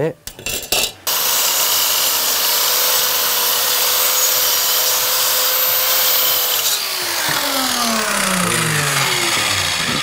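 Silverline mitre saw switched on about a second in, its motor running with a steady whine while it cuts an oak offcut. Near seven seconds the saw is switched off and the motor spins down with a falling whine.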